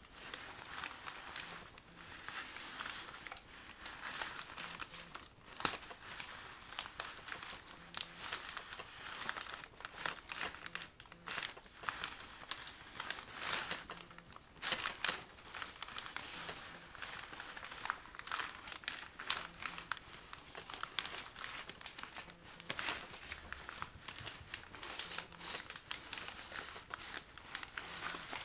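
Taped-together brown Duro paper bags crinkling and rustling as they are pulled along in a continuous scroll, with irregular sharper crackles throughout.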